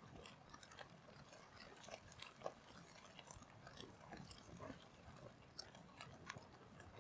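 Faint, irregular crackling and ticking from a charcoal cooking fire, with a foil parcel of eggplant cooking on it.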